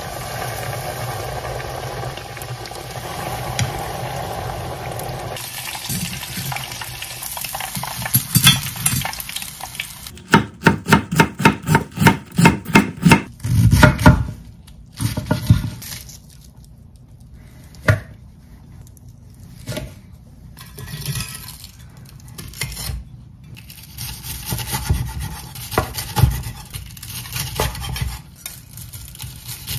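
A breaded beef cutlet deep-frying in hot oil at 190 °C, a steady sizzle for the first several seconds. Then a knife chopping quickly and evenly on a wooden cutting board as cabbage is shredded, and near the end a knife crunching through the cutlet's fried crust on the board.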